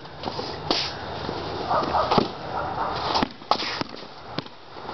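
Basketball bouncing on a concrete driveway, several separate bounces at an uneven pace as it is dribbled.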